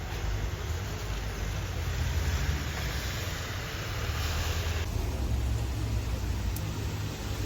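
Steady outdoor road-traffic noise: a low rumble with a hiss over it. The hiss drops off suddenly about five seconds in.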